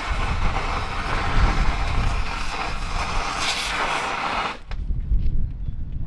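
Exothermic magnesium cutting rod burning with oxygen through a seized steel bulldozer pin: a loud, dense hissing crackle that cuts off suddenly about four and a half seconds in, leaving a low rumble.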